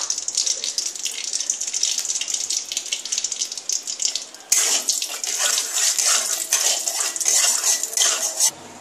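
Mustard oil and ghee sizzling and crackling in a hot aluminium kadai. About halfway through, a metal spatula starts stirring them together and the sizzling grows louder, then it cuts off abruptly near the end.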